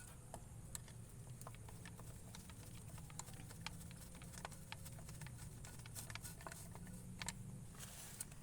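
Engine idling quietly: a steady low hum with scattered light ticks and clicks.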